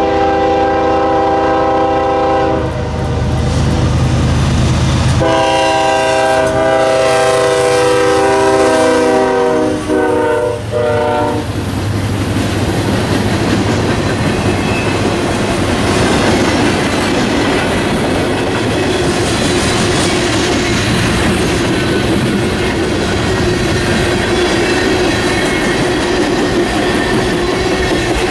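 Norfolk Southern freight train's locomotive horn sounding for a grade crossing, with diesel engine rumble beneath. One blast ends about three seconds in; another runs from about five to eleven seconds in, its pitch sagging as the locomotives pass. Then the freight cars roll by with steady wheel clatter on the rails.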